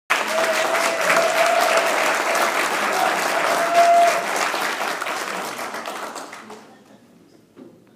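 Audience applauding, dense clapping that dies away near the end, with a held tone sounding over it for the first half.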